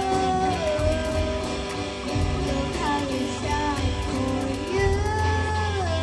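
Background music: a held, gliding melody line over plucked guitar and a steady bass.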